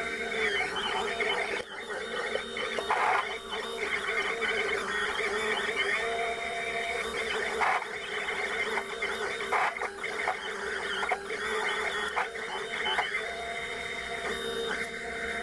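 Robox Dual 3D printer's stepper motors whining as the print head moves between points during automatic bed leveling, heard sped up, with short rising and falling pitch glides as the motors speed up and slow down.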